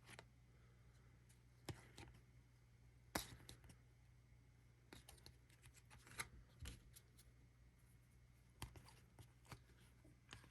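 Faint, scattered clicks and rustles of baseball trading cards being handled and slid off the stack one at a time.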